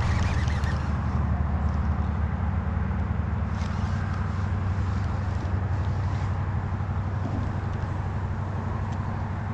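A motor running steadily with a low, even throbbing hum.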